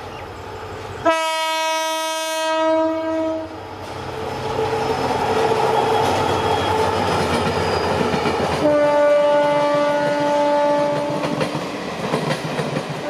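EMD GT46MAC (WDG4) diesel-electric locomotive passing with a train of coaches, sounding its horn twice: a blast of about two and a half seconds about a second in, and a longer one about nine seconds in. Between the blasts the locomotive's diesel engine grows louder as it draws level, and near the end the coach wheels clatter over the rail joints.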